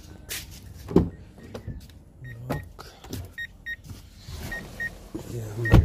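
Driver's door of a Mahindra Scorpio-N being opened and the driver getting in, with clicks and handling thumps, while the car's interior warning chime beeps in pairs about once a second. A heavy thump near the end, the loudest sound, as the door is shut.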